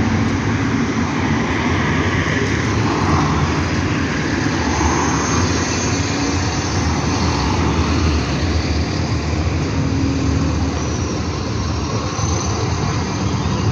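City bus engine running as the bus drives around a roundabout and pulls away, over steady street traffic noise.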